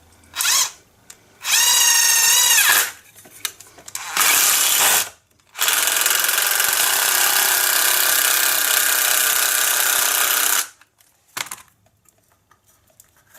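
Cordless impact driver driving a screw into a wood plug stuck inside a hole saw to force it out: a few short trigger pulls, then one long run of about five seconds that stops sharply.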